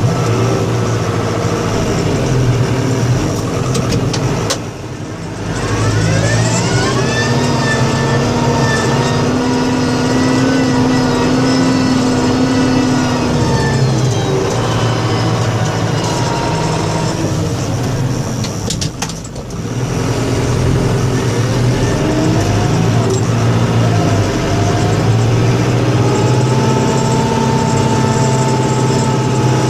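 Snow-plow vehicle's engine running steadily and revving up twice, its pitch rising and then holding. There are short dips in the sound about five seconds in and again near the middle.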